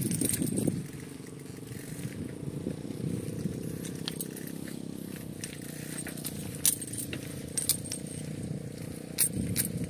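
A steady low engine drone, with light clicks and rattles now and then.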